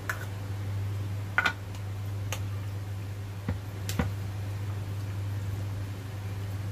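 A handful of light clicks and taps as raw chicken wings are mixed by hand with seasoning in a small bowl, over a steady low hum.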